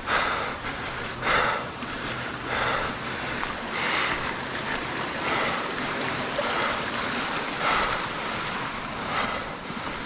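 A hiker moving along an overgrown brushy trail: rustling of leaves and steps, in regular swells about every second and a half over a steady noisy hiss.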